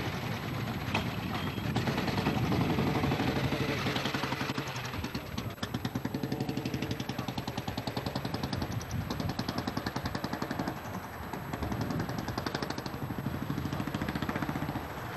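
Motorcycle engine pulling away under throttle, then riding off with a fast, even beat of exhaust pulses; the note dips briefly about two-thirds of the way through, then picks up again.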